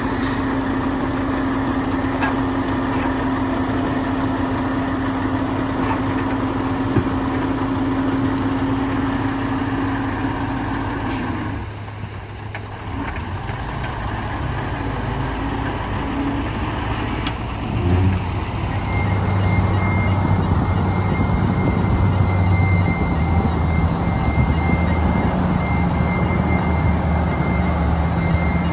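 Heavy diesel engines of earthmoving machinery running steadily under load. The sound changes character about 12 s in, and a thin steady high-pitched tone joins it from about two-thirds of the way through.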